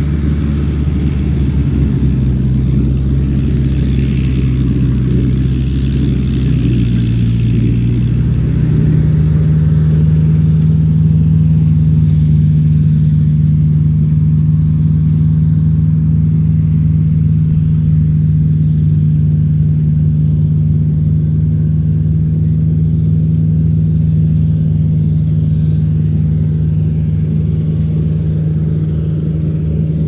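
Tractor engine running steadily; about eight seconds in it speeds up a little, its pitch stepping up, then holds even.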